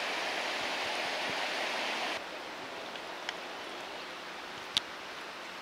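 River water rushing steadily over a rocky riffle. About two seconds in, the sound steps down to a quieter, even flow, with a couple of faint clicks.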